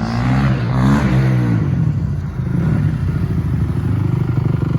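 2005 Honda CRF450's single-cylinder four-stroke engine, revved once, the pitch rising and falling about a second in, then settling into a steady idle.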